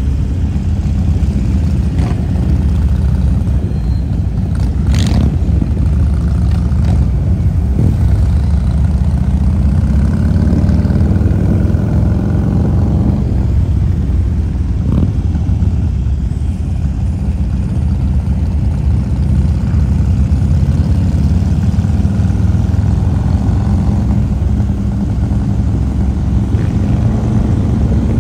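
Harley-Davidson Road King's V-twin engine running steadily under way, with wind rush and other motorcycles riding close ahead, plus a couple of brief sharp noises.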